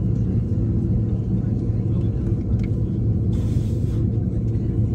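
Steady low rumble of an Airbus A330 cabin while the airliner taxis at slow speed, with a short hiss about three and a half seconds in.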